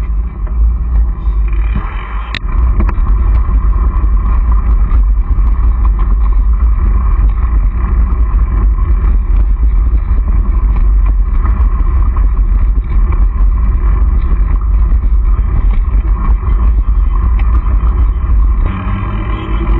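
Wind rushing over a mountain bike's onboard camera microphone, with the tyres rumbling over a dirt track and scattered small rattles and clicks from the bike. The rumble eases briefly about two seconds in and again near the end.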